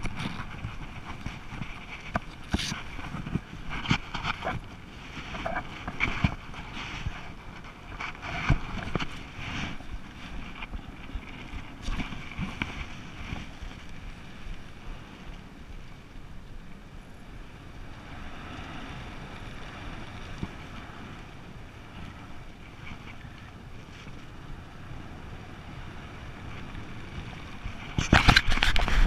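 Airflow rushing over a body-mounted camera's microphone while flying under an open parachute canopy, with scattered knocks and rustles of gear and steering toggles. The wind noise rises sharply and gets much louder about a second before the end.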